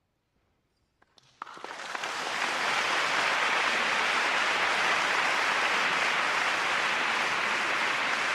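Brief near silence, then a few scattered claps about a second in that swell quickly into steady audience applause.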